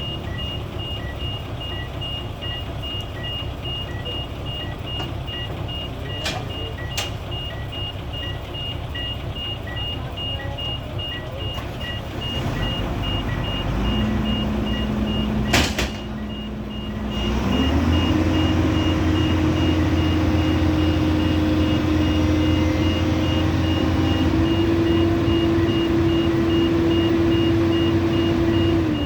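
Excavator diesel engine running, with its alarm beeping regularly a little under two times a second through the first half and a few sharp metallic clanks. About two-thirds in, the engine revs up and holds a higher, louder note as the machine works its hydraulics while being unloaded.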